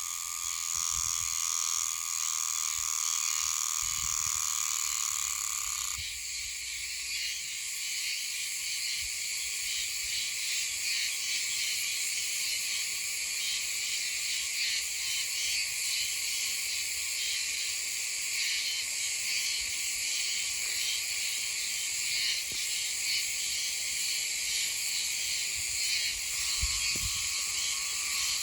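Oshima cicada (Meimuna oshimensis) singing, a continuous shrill buzzing. About six seconds in the steady tone changes to a rapid fluttering pulse, and the lower steady tone returns near the end.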